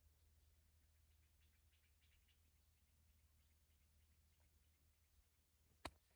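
Near silence: a low steady hum with many faint, short, high ticks, and one sharp click near the end.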